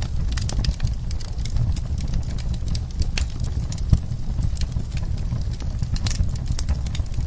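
Wood fire burning in a fireplace: irregular sharp crackles and pops over a steady low rumble of flames, with one louder pop about four seconds in.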